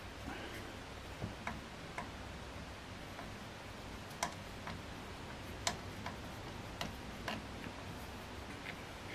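Faint, irregular small metal clicks of a screwdriver working a star-head (Torx) screw out of a wooden rifle stock, with two sharper clicks about four and six seconds in.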